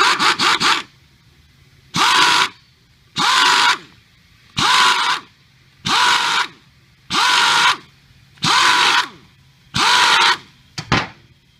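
Pneumatic impact wrench driving the flange screws of a diaphragm pump head, fired in about eight short bursts roughly a second and a half apart, with a brief blip near the end. Each burst is a loud air-motor whine and hiss.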